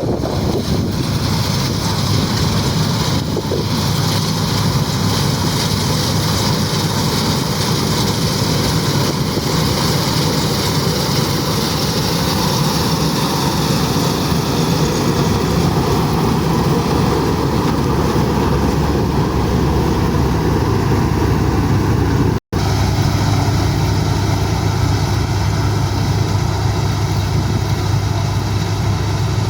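Mahindra Arjun Novo 605 tractor's diesel engine running steadily under load while working in wheat harvesting. The sound drops out for an instant about three-quarters of the way through.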